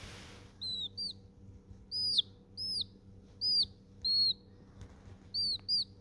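Baby chicks peeping: about eight short, high, arching chirps, some in quick pairs, with gaps of silence between them.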